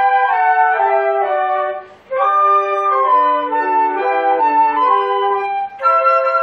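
Several flutes playing together in harmony, a flute ensemble rehearsing from sheet music. The playing stops for a moment about two seconds in, then picks up again.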